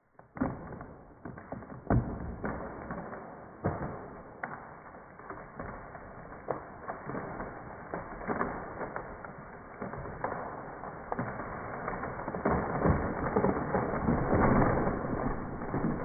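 Dead tree cracking and splintering as it falls: a run of sharp cracks from the trunk, then a building crash of breaking branches and thrashing foliage, loudest as it comes down. The audio is slowed down with the slow-motion footage, so it sounds deep and drawn out.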